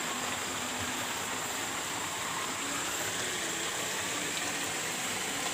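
Steady rush of flowing river water, even and unbroken, with a thin steady high tone above it.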